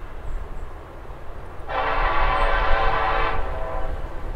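Horn of an EMD SD70ACe diesel locomotive sounding one steady blast of nearly two seconds, starting a little under two seconds in, over a low rumble.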